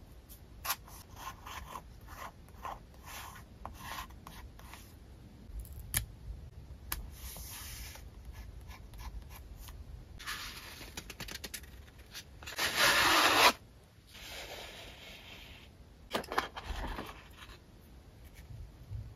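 Paper collage pieces being handled on a journal page: light taps of metal tweezers and rustles of paper, with a loud rubbing scrape of paper about two-thirds of the way through and a few sharper knocks after it.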